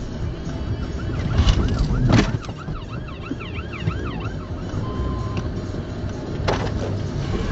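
Police car siren yelping in fast rising-and-falling sweeps, about four a second, for a couple of seconds. Underneath is the steady drone of road noise inside the car's cabin. A sharp thump comes about two seconds in.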